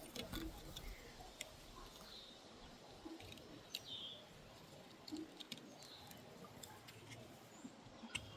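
Faint outdoor ambience with a few short bird chirps spread through it, the clearest about four seconds in, over scattered light clicks and handling noises.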